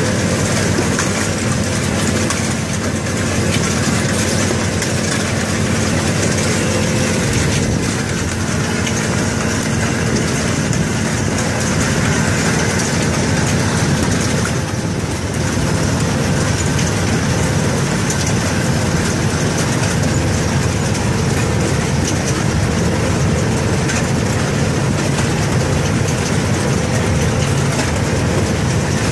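Steady machine noise of a watermelon harvesting rig: the truck's engine and the belt conveyor running, with a continuous rumble and clatter.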